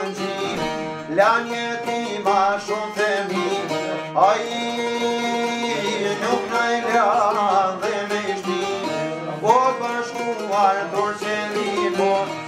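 Çifteli and sharki, Albanian long-necked lutes, plucked together in a folk melody with sliding, wavering notes.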